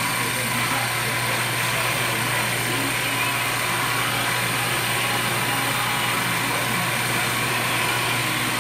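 Tire-shaving (truing) machine running steadily, turning a dually truck tire against its cutter to shave the tread: a constant motor hum with a steady hiss above it.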